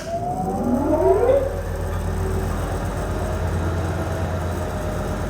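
Swift 16V5 lathe's electric drive motor starting on its star-delta starter, still in star: a whine rises in pitch for about a second and a half as it runs up to speed, then settles into a steady whine over a low hum.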